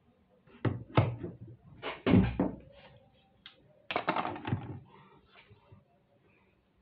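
Plastic Rubik's cube clacking in the hands in short bursts of quick layer turns, about one, two and four seconds in, with a heavier knock against the desk about two seconds in.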